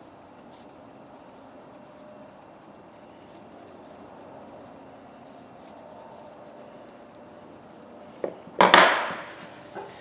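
Faint, steady rubbing and handling noise at the workbench. About eight and a half seconds in come a click and a loud, short scraping rush that fades within a second.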